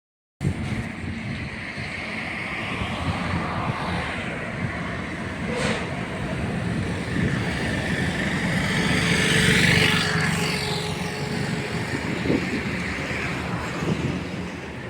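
30 kW (40 hp) screw air compressor running steadily: a continuous machine drone with a low hum and a hiss, swelling a little about two-thirds of the way through.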